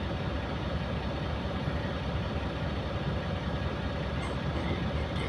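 Tonly TL859 mining dump truck's diesel engine running under load as the truck struggles up a muddy slope: a steady low rumble with a steady hum over it.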